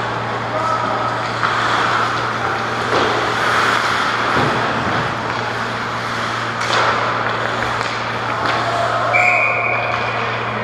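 Rinkside ice hockey sound: skates scraping the ice and a few sharp knocks of sticks or puck over a steady low hum. A short held high tone comes near the end.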